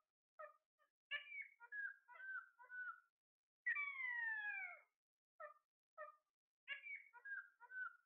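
Alexandrine parakeets calling: short chirps and chatter, and about four seconds in one long falling call lasting about a second.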